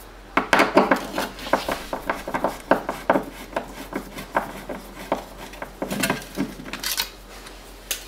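Screwdriver working at a plastic alarm keypad back plate on a wall: irregular clicks, knocks and rattles of hard plastic as it is unscrewed and prised off, with a short scrape about six seconds in.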